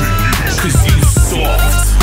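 Hip hop entrance theme music with a heavy, steady bass beat.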